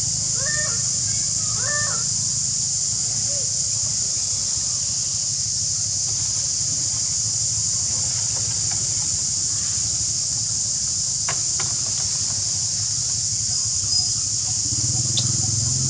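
Outdoor ambience: a steady high-pitched drone with a low hum under it, and two short chirping calls about half a second and two seconds in.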